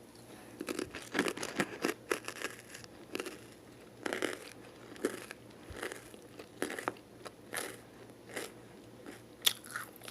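Close-miked crunchy chewing: a person biting and chewing a crisp snack in irregular crackly crunches, several a second at first, then more spaced out.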